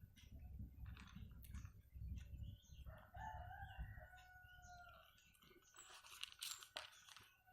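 A rooster crowing once in the background, starting about three seconds in and lasting about two seconds. Faint scattered crunching clicks of a cat eating mixed kibble and wet food come before and after it.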